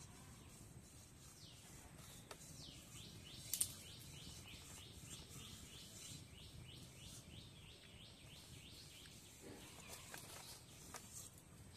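A bird calling a fast run of short, falling notes, about three a second, for some six seconds, over a faint outdoor hush. One sharp snap sounds about three and a half seconds in.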